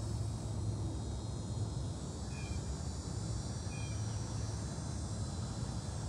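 Outdoor ambience: insects chirping steadily in a high-pitched chorus over a steady low rumble, with two short faint chirps about two and a half and four seconds in.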